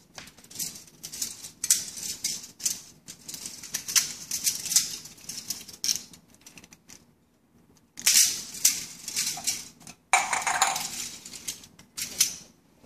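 Thin aluminium soda-can parts, cut and slotted rings and can bodies, being handled and set down on a countertop: light metallic rattling and crinkling in irregular bursts, pausing briefly about halfway.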